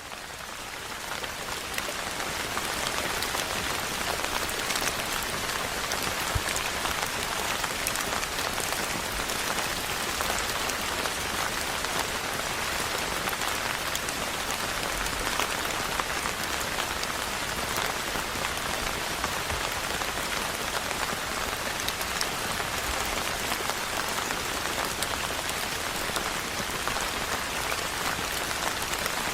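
Steady rain falling on a building rooftop: a dense, even hiss scattered with the ticks of individual drops. It fades in over the first two seconds or so.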